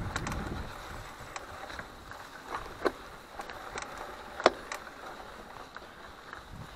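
Mountain bike on a rough trail: scattered sharp clicks and knocks from the bike, the loudest about four and a half seconds in. Low wind rumble on the microphone fades after the first second.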